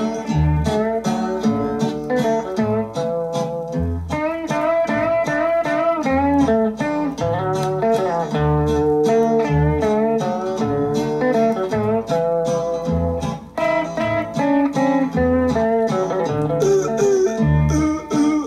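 Instrumental break of a country novelty song played from a vinyl LP: a guitar picks a melody with bent, wavering notes over a steady alternating bass line, with no singing.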